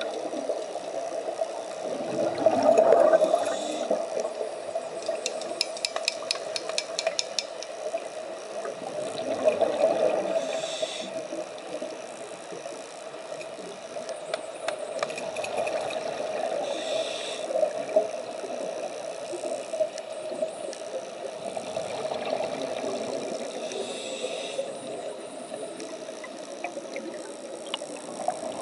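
Scuba diver breathing through a regulator underwater: exhaled bubbles burst and gurgle about every seven seconds, with a higher hiss between them. A quick run of clicks about five seconds in.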